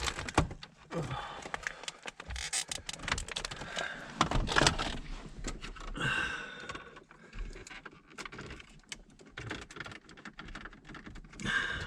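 Hands working a plastic retaining clip off the HVAC temperature control cable under a car's dashboard: an irregular run of small clicks, taps and rattles with rustling between them.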